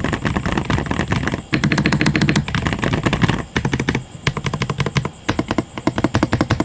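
Rapid typing on a mechanical keyboard fitted with Otemu silver linear switches, in fast runs of keystrokes broken by brief pauses about a second and a half and three and a half seconds in.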